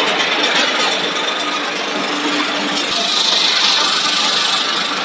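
Fried wheat-snack production line machinery running: a steady, dense mechanical noise from the conveyors and plant equipment, slightly brighter from about three seconds in.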